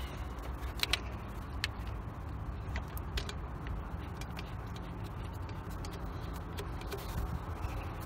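Scattered light metallic clicks and taps of hand tools as a bracket bolt is fitted, at irregular moments over a steady low hum.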